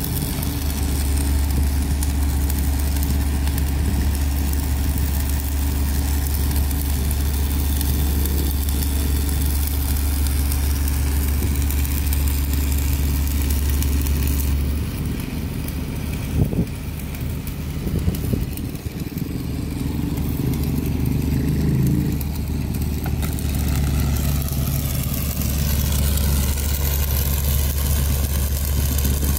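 Diesel engine of a Kobelco 7080 crawler crane running with a steady low drone. About halfway through it eases off for several seconds, with a couple of short knocks, then comes back up to speed.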